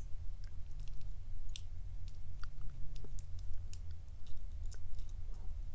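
Irregular small clicks and taps from a round-bodied padlock and tools being handled and probed, over a low steady hum.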